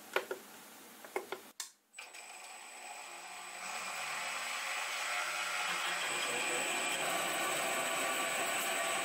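A few clicks from the controller's keypad, then a small metal lathe's spindle motor starts and runs steadily with a constant high whine, growing louder about three seconds in as the parting tool, fed by the motorised cross slide, cuts into the spinning metal bar.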